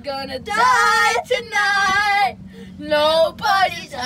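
A high-pitched voice singing, or wailing in a sing-song way: a run of long, wavering notes with short breaks between them.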